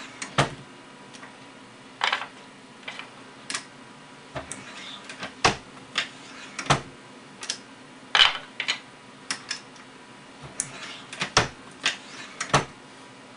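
Irregular metallic clicks and clacks of a single-stage reloading press being cycled by hand as fired rifle brass is neck-sized in a Lee Collet die, with the brass cases clicking in and out of the shell holder.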